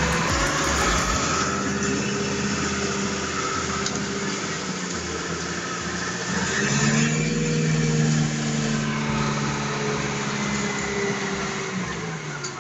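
Toy remote-control cement mixer truck running, a steady engine-like hum over a hiss that shifts up in pitch and grows louder about two-thirds of the way through.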